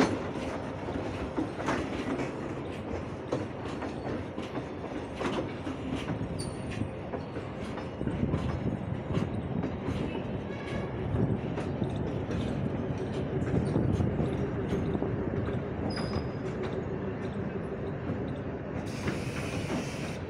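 Open freight wagons of a goods train rolling past close by: a steady rumble with the wheels clicking over the rail joints.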